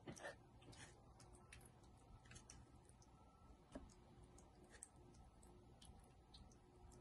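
Faint, scattered clicks and light taps of a tiny spatula spreading frosting over a miniature cake, irregular and soft.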